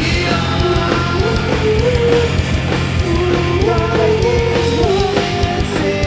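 Live heavy rock band playing loudly, with a drum kit and a melodic line that slides between notes.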